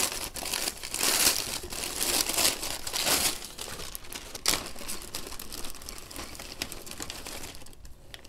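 Gift-wrap paper crinkling and tearing as it is pulled off a parcel item, then a zip-top plastic bag rustling as it is opened. The crinkling is loudest over the first few seconds and grows quieter toward the end.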